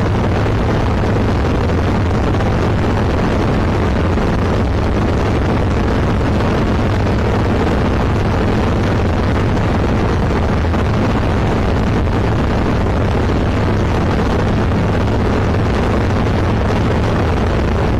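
Steady drone of a Zenith CH701 light aircraft's engine and propeller in level flight, heard from inside the cockpit with wind noise over it.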